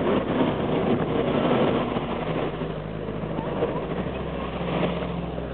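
Engines of WWII military vehicles driving past. A dense rumble in the first two seconds eases off, then a jeep's engine drones with a steady low note as it approaches.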